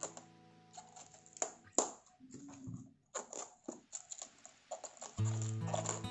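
Crisp crackling and snapping of fresh cabbage leaves being peeled apart by hand, with many sharp clicks. Background music plays under it, dropping out about two seconds in and coming back about five seconds in.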